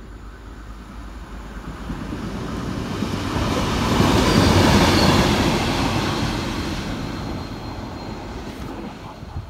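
A 201 Class diesel locomotive passes through the station. Its rumble and rush build to a peak about four to five seconds in, then fade away.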